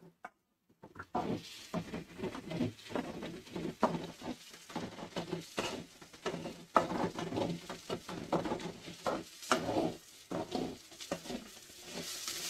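Diced carrots, beans and small onions frying in oil in an aluminium kadai, stirred with a slotted metal ladle that scrapes and knocks against the pan over the sizzle. The stirring starts about a second in, and the sizzle grows louder near the end.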